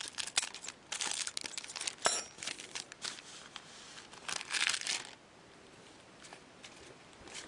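Foil trading-card pack wrappers crinkling and tearing in bursts as a pack is opened and the cards handled, with a sharp click about two seconds in. It goes quieter for the last couple of seconds.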